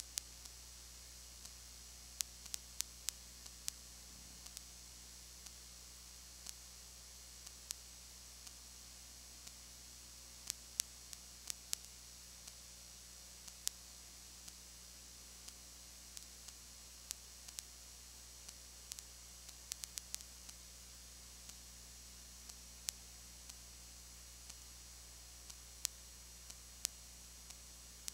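Steady tape hiss and low electrical hum with scattered sharp clicks and pops at irregular intervals: the noise floor of an old videotape transfer, with no game sound audible.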